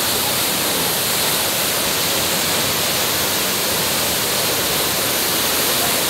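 Tall jungle waterfall pouring into its rocky pool, a loud, steady rush of falling water with no let-up.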